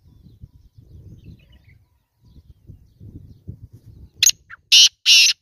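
Black francolin calling: a run of loud, harsh, grating notes that starts about four seconds in, after a faint low rumble.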